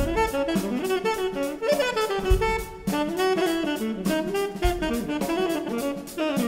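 A modern jazz septet playing: a melodic horn line over a drum kit, with steady cymbal strokes and a few low thumps.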